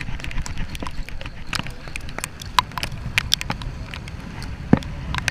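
Steady low rumble of wind and a boat moving on a choppy sea, with many irregular sharp ticks and splashes and one louder knock near the end.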